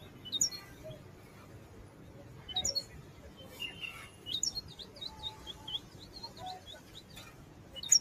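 Caged goldfinch singing: scattered bright chirps, with a quick run of twittering notes in the middle and a louder chirp near the end.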